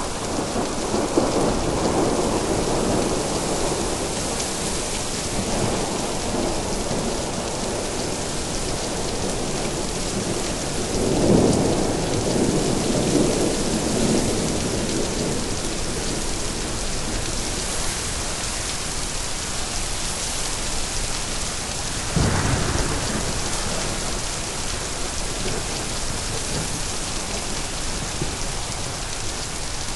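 Thunderstorm: steady heavy rain with rolling thunder rumbling in the first few seconds and again, loudest, about eleven to fourteen seconds in, then a sharper thunderclap about twenty-two seconds in.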